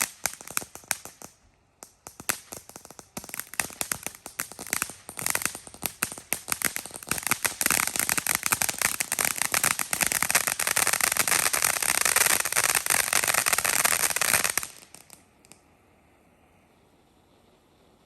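Consumer fireworks crackling: a rapid, uneven run of small crackling pops with a brief lull near the start. It thickens into a dense continuous crackle about seven seconds in, then stops abruptly about fifteen seconds in.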